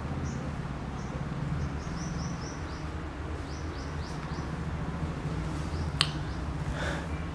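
Birds chirping in short, high, repeated chirps over a steady low background hum, with a single sharp click about six seconds in.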